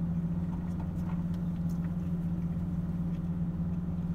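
Car engine idling, a steady low hum heard from inside the closed cabin, with a few faint small clicks over it.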